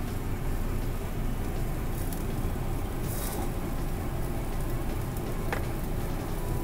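Meat sizzling on a tabletop yakiniku grill: a steady crackling hiss over a low, even rumble, with a few light clicks and a brief louder hiss about three seconds in.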